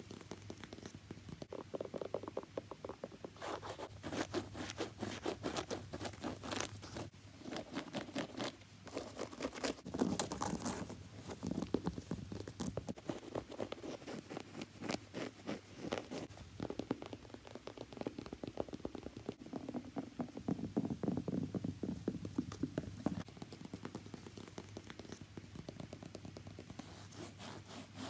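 Close-up tapping and scratching on a shoe: quick runs of small taps mixed with scraping strokes, with short pauses between runs.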